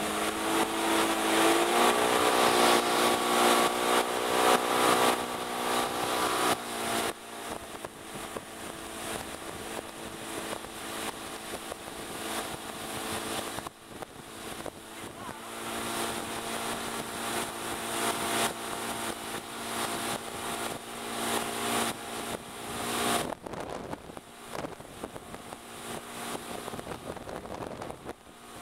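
Tow boat's engine running under load, its pitch rising about two seconds in as the boat speeds up, then running steadily, with wind and rushing water noise.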